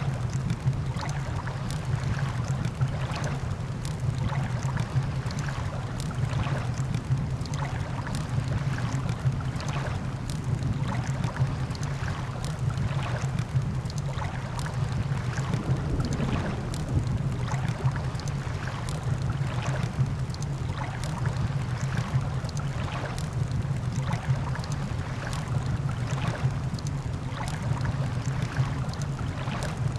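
Campfire crackling, with sharp pops several times a second, over a steady low rushing of surf.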